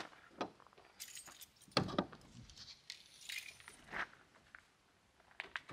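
Clicks and knocks of a pickup camper shell's rear glass hatch being unlatched and lifted open, with a dull thump a little under two seconds in.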